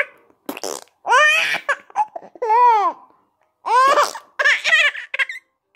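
Baby laughing hysterically in four high-pitched squealing bursts, one rising and falling in an arc, with short gaps between them. A brief raspy noise comes about half a second in.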